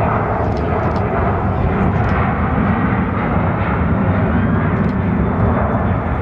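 Steady, loud jet engine noise from a departing Boeing 737, a dense rumble that holds level throughout.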